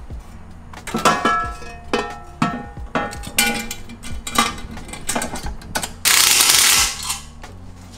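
Metal parts clinking with ratchet-like clicking from hand tools, some strikes ringing briefly. About six seconds in comes a loud hiss lasting about a second.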